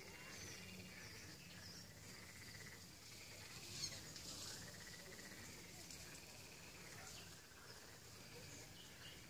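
Faint night-time outdoor ambience with animal calls: chirps and drawn-out calls that rise and fall in pitch, and one brief louder sharp sound about four seconds in.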